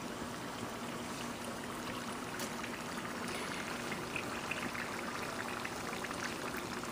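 Egg rolls deep-frying in hot oil in a small pan: a steady sizzling and bubbling, over a faint low steady hum.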